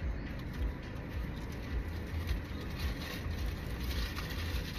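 Steady low rumble and hiss inside a car's cabin, with light rustling crackles.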